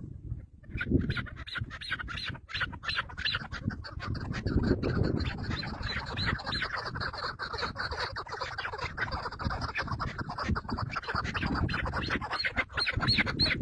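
Birds squawking in a rapid run of short, repeated calls, several a second, over a rough, scuffling background.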